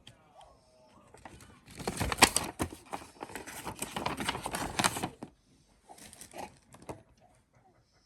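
Rustling and crinkling of handled packaging, with clicks and small knocks mixed in, loudest for about three seconds in the middle.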